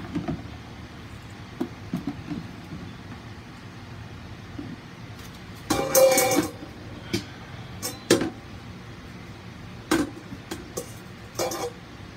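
Objects being handled: scattered short knocks and clinks, the loudest a brief cluster about six seconds in, over a steady low hum.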